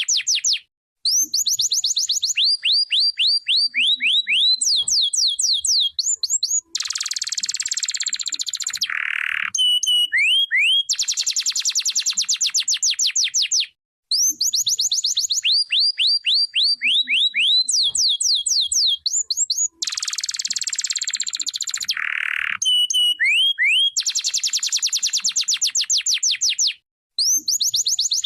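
Canary singing a long song of rapid trills, each a fast run of repeated sweeping notes, with a harsher rolling section partway through. Short pauses split the song, and the same sequence comes round twice, about thirteen seconds apart.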